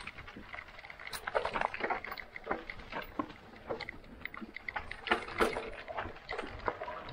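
Mountain bike descending a dirt and rock singletrack: tyres rolling over loose soil and dry leaves, with irregular rattles and knocks from the bike as it hits rocks and roots.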